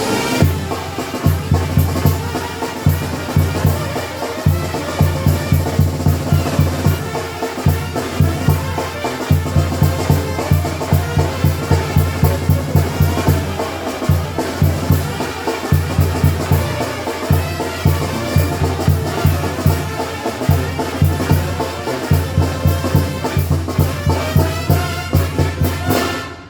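Sinaloan tambora brass band playing a lively tune, with brass over a steady low beat of bass drum and bass notes; the music cuts off at the very end.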